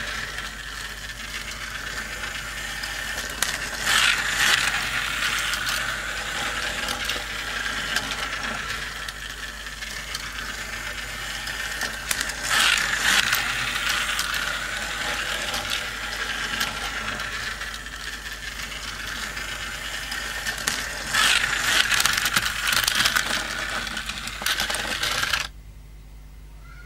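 Motorised plastic toy racing track running, small toy cars clattering along the plastic track pieces with a steady ratchet-like rattle of gears. It swells louder about every nine seconds as the cars come round close by, then cuts off suddenly near the end when the track stops.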